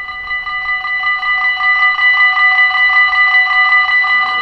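Dutch level-crossing warning bell ringing rapidly and steadily, a fast, even pulse of ringing tones that grows louder over the first second or two. It signals an approaching train, with the barriers about to come down.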